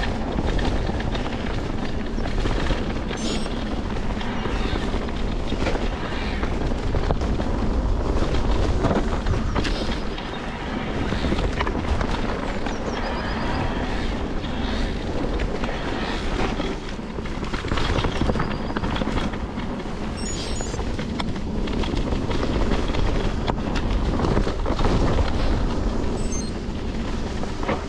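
Riding noise of an electric mountain bike on a dirt trail: wind buffeting the camera microphone over the rumble of tyres rolling on dirt, steady with brief dips.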